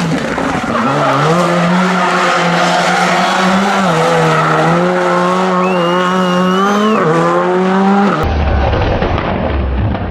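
Rally car engine running hard at high revs, its pitch stepping up and down a few times, then an abrupt cut about eight seconds in to a rougher, noisier car sound.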